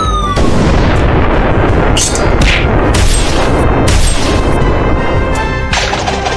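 Explosion sound effects over background music: a brief falling zap, then a long blast with several sharper hits in it.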